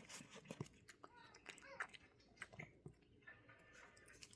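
Cat chewing tomato: faint, irregular chewing clicks and smacks.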